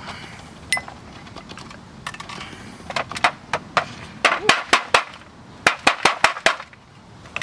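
Chisel chipping a fired plaster mold away from an aluminum casting: a few scattered sharp taps, then a quick run of about a dozen sharp taps and cracks in the second half.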